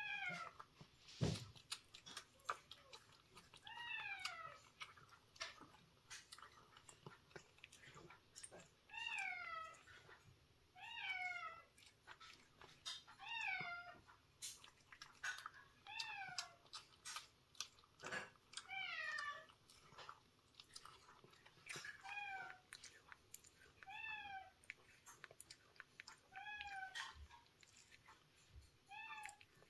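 Cat chewing and lapping wet food from a metal bowl, with many small wet clicks, and a short high mew that falls in pitch about every two seconds.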